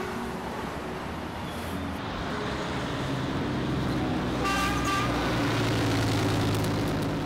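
Rush-hour city street traffic: engines running close by and growing louder, with a short car horn toot about four and a half seconds in.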